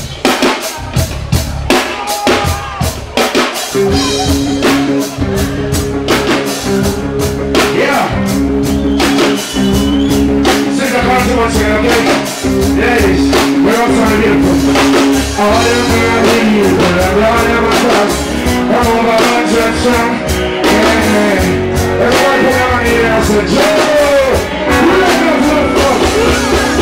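Band music with a drum kit: loose drum hits at first, then a steady bass line and held chords come in about four seconds in, and a singing voice joins about a third of the way through.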